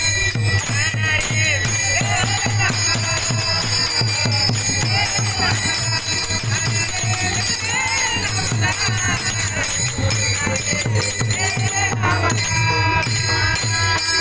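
Kirtan devotional music: a singing voice over fast, steady jingling hand percussion and a low drum pulse.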